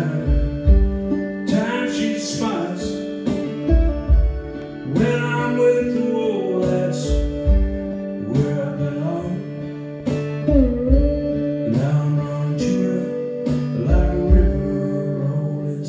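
Slide guitar played flat on the lap, sustained notes gliding between pitches over a low thumping beat about every one and a half to two seconds.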